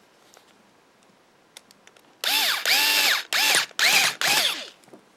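Cordless electric screwdriver driving a terminal screw down on a plug end to clamp the wire, its motor running in four short bursts that each spin up and wind down, the first burst the longest.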